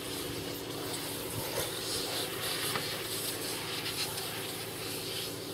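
A steady engine hum holding one unchanging pitch, with outdoor background noise over it.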